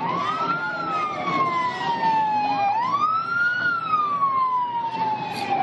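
Emergency vehicle siren on a slow wail, twice rising quickly in pitch and then falling slowly, and starting to rise again at the very end.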